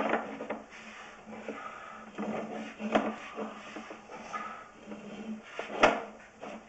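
Sewer inspection gear scraping and knocking irregularly as the camera cable is worked, over a steady low hum; one sharper, louder knock about six seconds in.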